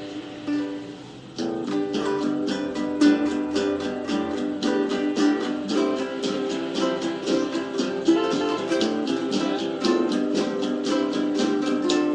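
Ukulele played solo: a held chord dies away, then about a second and a half in the playing starts up again as a quick, steady run of plucked notes and chords.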